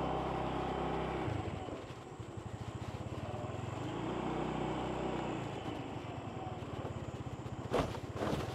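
A vehicle engine running steadily with a fast, even pulsing, its pitch shifting a little now and then. Two sharp knocks come near the end.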